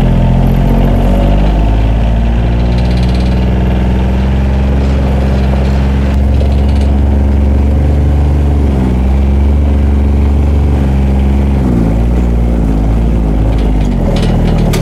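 John Deere Gator utility vehicle's engine running steadily as it is driven along, its pitch dipping briefly a little past halfway and wavering up and down near the end as the speed changes.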